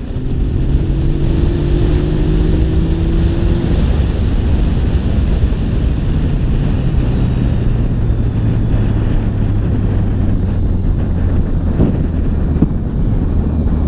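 Yamaha XSR900's three-cylinder engine running as the bike slows, its note falling gradually, under heavy wind rush on the microphone.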